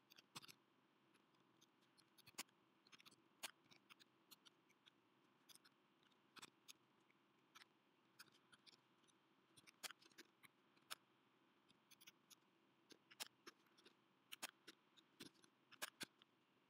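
Near silence with faint, scattered clicks at irregular intervals, about a dozen in all: computer keyboard keys as CSS is typed into a code editor.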